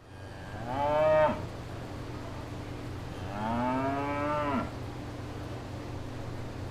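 Cattle mooing: two drawn-out moos that rise in pitch, a shorter loud one about half a second in and a longer one about three seconds in. A steady low hum runs underneath.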